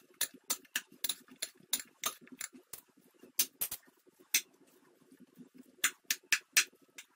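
Metal spoon clinking and scraping against a glass baking dish while cauliflower and vegetables are tossed: irregular sharp taps several times a second, with a cluster of louder clinks near the end.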